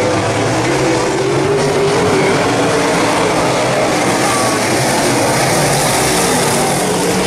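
Dirt late model race cars' V8 engines running at racing speed around the track, a loud, steady drone with the pitch wavering a little as they race.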